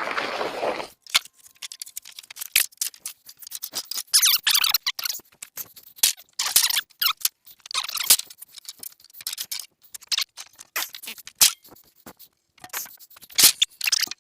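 Air-dried lumber boards being pulled off a stack by hand: wood knocking and clacking against wood in irregular strikes, with short scrapes and squeaks as boards slide over one another.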